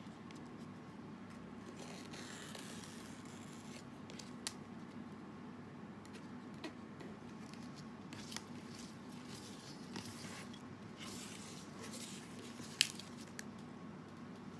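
Banana leaf being cut to shape: soft crackles and snips of the leaf with a few short clicks, one sharper near the end, over a steady low hum.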